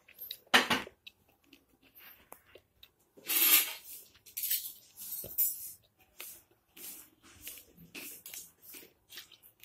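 A metal spatula scraping and turning raw chicken pieces in a dry kadhai with no oil, as a series of short scrapes and clicks, with a sharp knock about half a second in and a longer hissing scrape a few seconds in.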